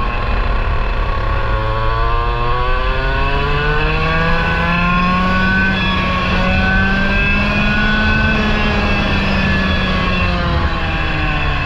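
Parilla SS20 single-cylinder two-stroke kart engine heard from on board the kart, pulling hard out of a corner and up the straight, its note climbing steadily through the revs. Near the end the note levels off and starts to fall away.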